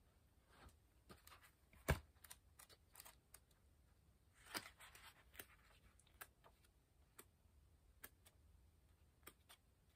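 Near silence: room tone with scattered faint, irregular clicks, one sharper click about two seconds in and a brief soft rustle at about four and a half seconds.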